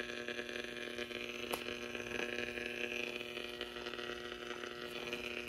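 Steady low electrical hum with a faint hiss from the powered-up 1938 Zenith Radio Nurse's vacuum-tube circuits, with no transmitted voice coming through. A couple of faint clicks come about one and a half and two seconds in.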